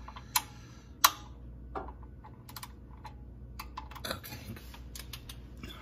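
Torque wrench on the 10 mm transmission pan bolts clicking irregularly, with one sharp click about a second in that is the loudest, as each bolt is checked to 70 inch-pounds.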